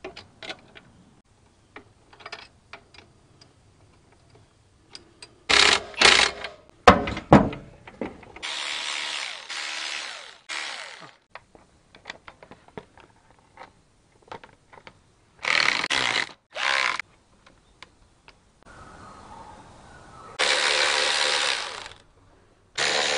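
Clicks and taps of hand wrenches on metal bolts. Then a cordless electric ratchet runs several times, in short bursts and in runs of a second or two, driving bolts home.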